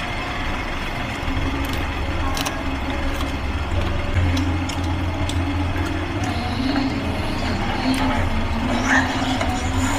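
Steady low rumble of background noise with a wavering hum over it, and a few faint sharp clicks of a crisp fish cracker being bitten and chewed.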